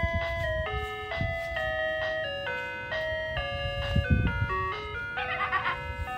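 Ice cream truck's music chime playing an electronic tune, one clear note after another, with a quick warbling trill about five seconds in. A low rumble runs underneath.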